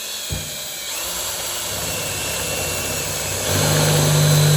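Electric drill with a 1/4-inch bit running and boring into a steel safe at the lock's drill point, to get through the malfunctioning lock solenoid. The motor note grows louder and heavier about three and a half seconds in.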